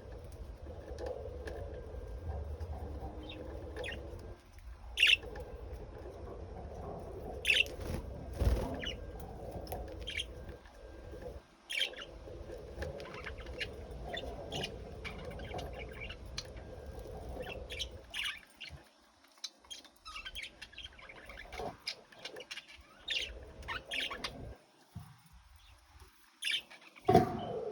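Lovebirds chirping in short, scattered calls, a few of them sharply louder, over a low steady background hum that fades out about two-thirds of the way through.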